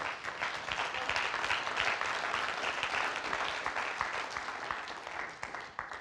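Church congregation applauding, many hands clapping at once, starting suddenly and dying away near the end.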